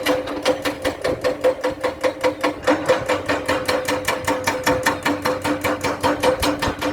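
Excavator crawler tracks clanking in a fast, even rhythm of about six clanks a second, over a steady hum from the machine.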